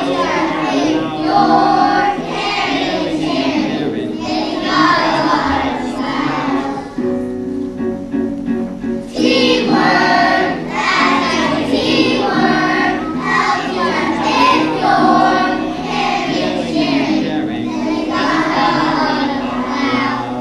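Backing music with a children's chorus singing, a stage musical's song continuing.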